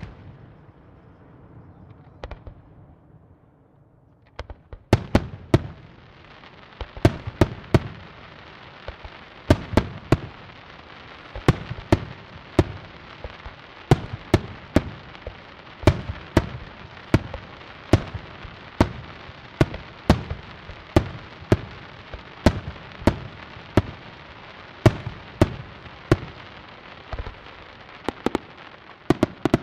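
Aerial fireworks shells bursting. After a quieter few seconds with a couple of single bangs, sharp bangs follow about one or two a second over a steady crackle, ending in a quick run of bangs.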